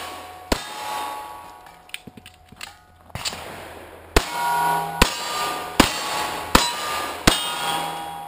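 Pistol shots at steel targets, each followed by the ringing of the struck plate. One shot, a pause of a couple of seconds, then six more at a steady pace just under a second apart.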